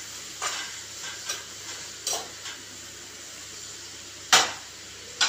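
A steel spoon scrapes around a frying pan as onions and turmeric are stirred, in several short strokes with the loudest about four and a half seconds in. The onions sizzle faintly in oil underneath.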